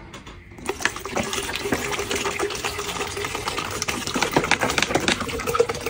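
Water pouring and glugging out of an upturned plastic water bottle into a plastic pitcher, splashing in a steady stream with irregular glugs. It starts about half a second in.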